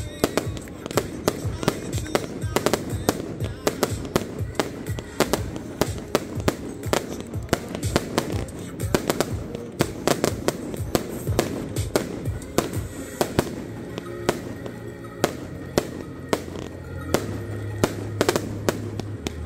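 Fireworks going off in a dense, rapid run of pops and bangs, with music playing underneath; steady low bass notes come through more strongly from about two-thirds of the way in.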